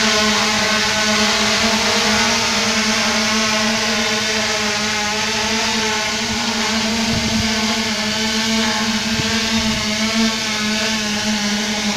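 3DR Solo quadcopter hovering, its motors and propellers giving a steady buzzing hum that wavers slightly in pitch.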